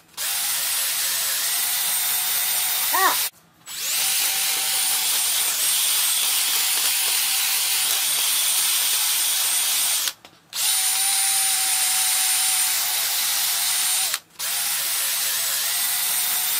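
Cordless drill spinning a brush attachment against a piston top inside a small-block Chevy cylinder, scrubbing the crusty surface clean. It runs steadily and stops briefly three times, at about 3, 10 and 14 seconds in.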